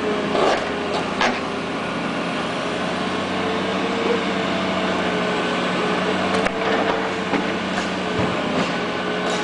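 Excavator engine running steadily, with a low drone, a higher whine that wavers slightly in pitch, and a few sharp knocks scattered through.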